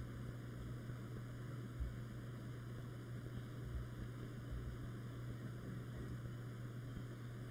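Steady low hum with faint hiss: room tone, with no distinct sound event.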